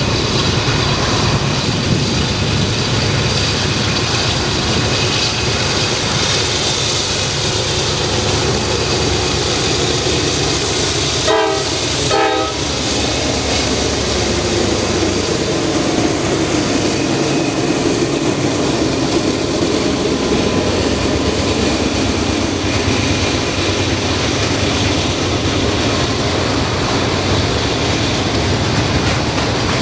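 A train rolling past with a steady, loud rumble of wheels on rail. A brief horn sounds about eleven seconds in.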